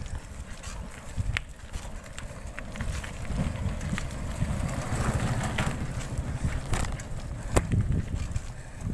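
Bicycle rattling over a rocky dirt trail, with scattered sharp clicks and knocks from the bike over a low rumble of wind on the microphone.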